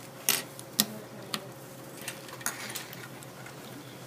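Plastic snap-circuit kit pieces being clicked together and set down on the plastic base grid and wooden desk: a handful of sharp, separate clicks and taps, the loudest two within the first second.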